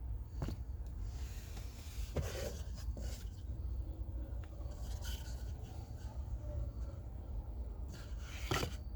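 Cabin air filter being handled at its housing behind the glove box: rubbing and scraping of the filter's pleats and frame against plastic, with a few sharp clicks, over a steady low hum.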